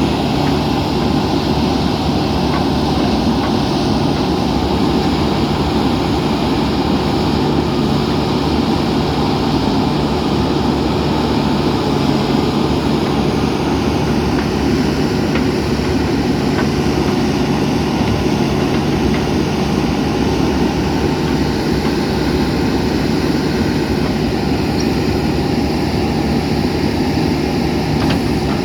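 Diesel engine of a JCB 3DX backhoe loader running steadily, with an even hum that holds level and no distinct knocks or impacts.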